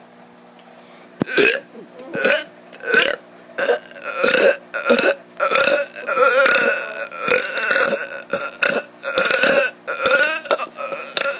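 A child burping over and over: a quick series of about fifteen short, loud burps, less than a second apart, starting about a second in.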